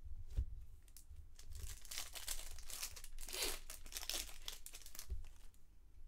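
Foil trading-card pack wrapper being torn open and crinkled by hand, loudest about halfway through. A dull bump sounds just after the start and another near the end.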